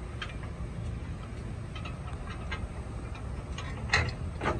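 Light metal clicks and taps of steel U-bolts being slid up through a step-tube bracket around a trailer tongue, with a sharper clack about four seconds in and another just after. A steady low outdoor rumble sits underneath.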